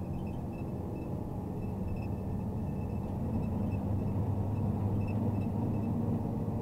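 Diesel engine of a MAZ Zubr truck crane running steadily on the road, a low, even hum that grows a little louder about halfway through.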